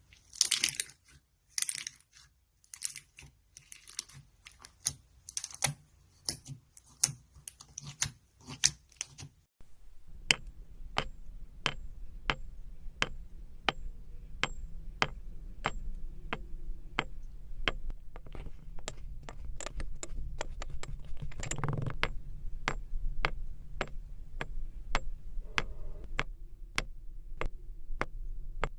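Slime being pressed and worked by hand, making crackling clicks and pops. It starts with irregular bursts of crackle. After an abrupt change, sharp clicking pops come about twice a second over a low steady hum, with one heavier squelch partway through.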